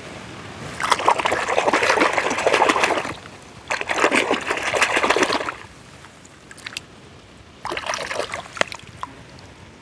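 Muddy puddle water splashing as a hand swishes a mud-caked toy car through it to wash the mud off, in three bouts of splashing with short pauses between.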